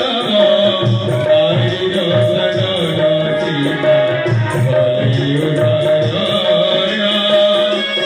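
Instrumental folk-theatre music: hand drums of the tabla kind play a busy, continuous rhythm under a melodic line that wanders above a steady held note.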